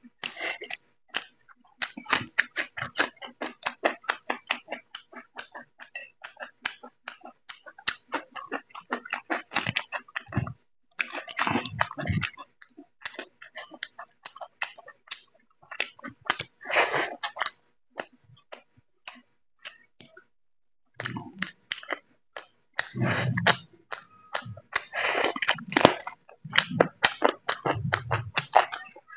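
Close-up open-mouth chewing of roti soaked in chicken curry: quick runs of wet smacking clicks that stop and start with short pauses.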